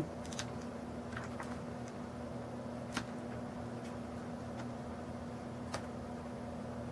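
A few faint clicks and taps from a laptop screen panel being handled and fitted back into its frame, the clearest about three seconds in and another near the end, over a steady low hum.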